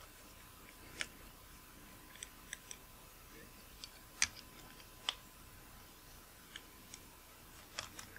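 Faint, scattered small metallic clicks and ticks of a screwdriver and tiny screws as the bayonet mount of a Nikkor 50mm f/1.4 AI-s lens is unscrewed. The sharpest two clicks come about four and five seconds in.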